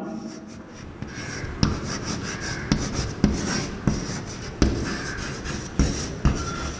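Chalk writing on a blackboard: scratching strokes broken by several sharp taps as the chalk strikes the board.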